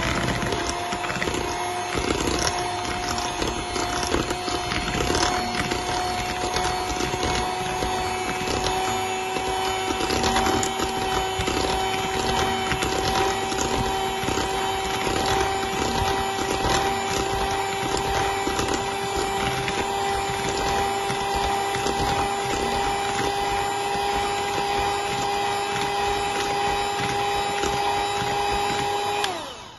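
Handheld electric mixer running steadily, its beaters creaming melted butter and brown sugar in a metal bowl: a constant motor hum that rises slightly in pitch, with a continuous rattle of the beaters against the bowl. It switches off near the end, the hum falling away as it winds down.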